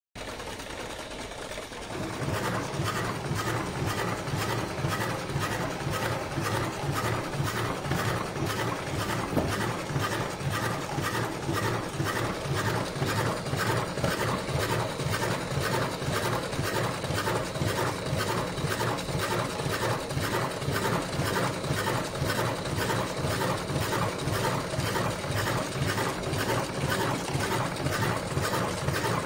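Electric cigarette-filling machine running, its cam-driven mechanism clattering in a fast, even rhythm that steps up in loudness about two seconds in.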